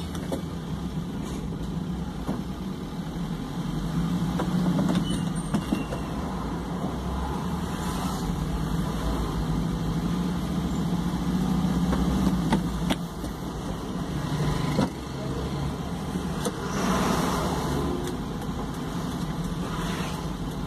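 A car's engine and road noise heard from inside the cabin while driving in city traffic: a steady low hum.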